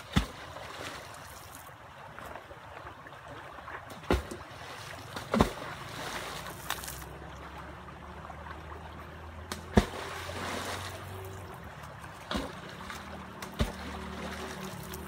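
Something heavy dropped or thrown into a shallow river, landing in about six sharp splashes spread a second or several apart, over the steady sound of the flowing water.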